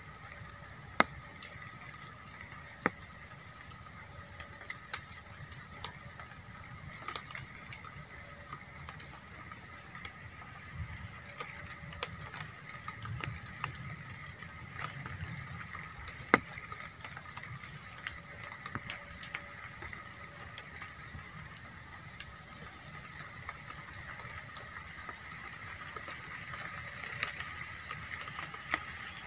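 Forest ambience with a steady high insect drone and a rapid high trill that starts and stops four times, over a few sharp clicks and snaps from a small campfire being tended by hand.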